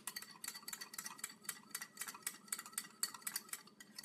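A utensil stirring cornstarch and water into a slurry, clinking rapidly against the inside of a small dish: a quick, even run of light clicks, several a second.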